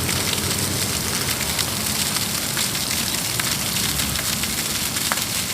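Fountain water splashing and falling steadily: a dense, crackling hiss with a low rumble underneath.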